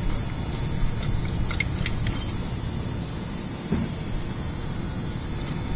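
Steady, high-pitched chirring of insects, likely crickets, over a low rumble, with a few light metallic clicks from hand tools and parts.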